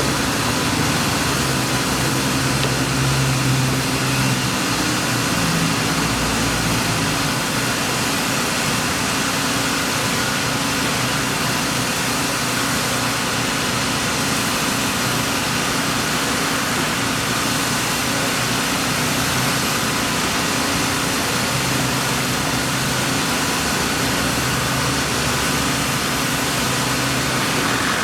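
Steady engine and traffic noise with a low running hum that swells and fades a little.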